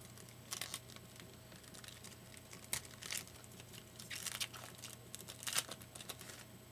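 Crinkling of plastic packaging as trading cards are handled, in a handful of short crackly bursts spread across several seconds.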